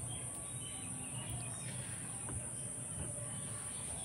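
Faint background of small birds chirping now and then over a steady high hiss.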